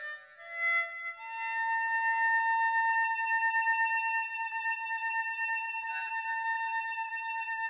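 Music: a wind instrument plays a few short notes, then holds one long, steady note.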